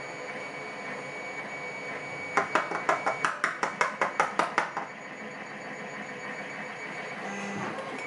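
A quick run of about a dozen small sharp clicks over a couple of seconds, starting a couple of seconds in. It is the parts of a cylinder lock being tapped and handled over a plastic pin tray while it is gutted of its pins.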